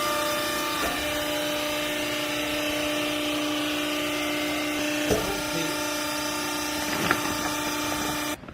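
Hydraulic baling press's motor and pump running with a steady hum and whine, with a couple of light knocks, then stopping abruptly near the end.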